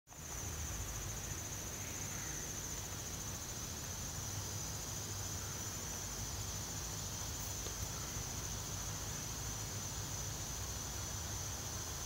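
Insect chorus: a steady, unbroken high-pitched trilling, with a low steady hum underneath.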